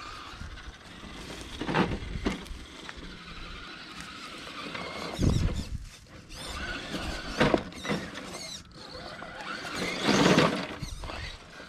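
Enduro Trail Walker RC crawler's electric motor and gears running in short bursts of throttle as it crawls over roots and rocks, about four bursts a couple of seconds apart, the longest and loudest near the end.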